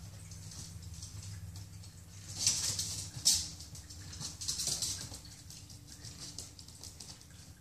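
Miniature pinscher puppy's claws pattering and scrabbling on a laminate floor in a few short bursts, with one sharp click about three seconds in.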